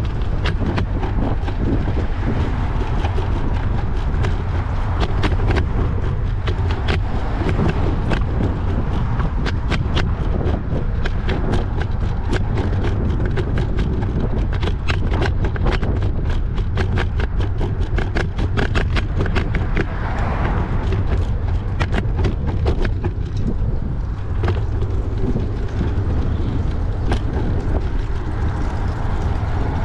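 Wind buffeting the microphone in a steady low rumble while a bicycle rolls along a street, with many quick clicks and rattles from the bike and its camera mount over the road surface.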